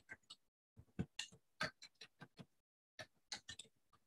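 Typing on a computer keyboard: irregular keystroke clicks in short runs, with brief pauses between them.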